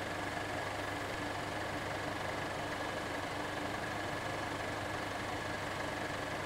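A steady mechanical hum, like an engine or machine idling, with a faint constant high whine over it and no change in level.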